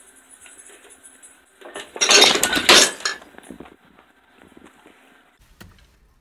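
A loud clattering crash of objects being knocked over, lasting about a second and starting about two seconds in, with faint knocks and rustling around it.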